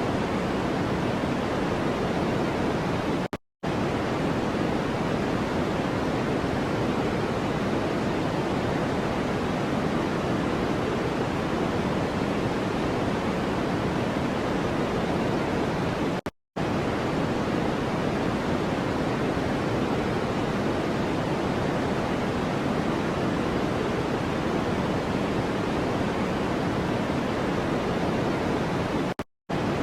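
Steady white-noise track, an even hiss weighted toward the lower tones, that drops out to silence for a split second three times, about thirteen seconds apart, like the seams of a looped recording.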